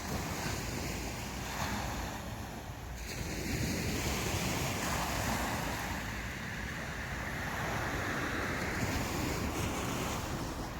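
Sea waves breaking and washing up a beach, with wind buffeting the microphone. A surge builds about three seconds in, stays up for several seconds and eases near the end.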